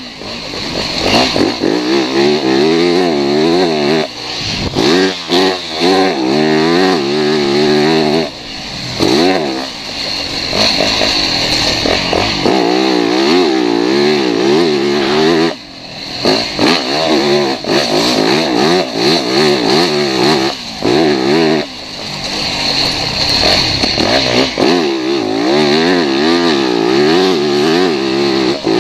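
Motocross dirt bike engine revving hard under constant throttle changes, its pitch rising and falling, with several brief drops where the throttle is chopped, heard from the rider's goggle-mounted camera.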